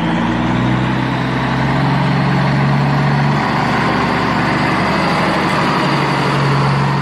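Heavy truck engine running steadily, its low hum stepping up slightly in pitch about halfway through.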